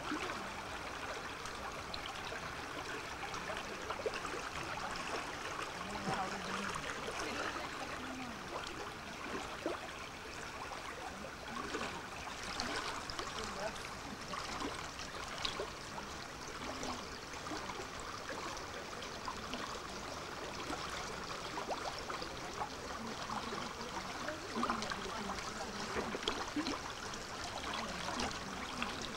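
Small river's water flowing steadily, an even rushing sound with no pauses.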